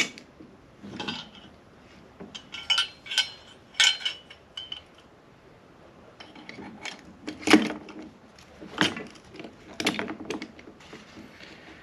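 Scattered metal clinks and taps, each ringing briefly, as the steel shift forks and gear clusters of a Honda Prelude manual transmission are handled and fitted together.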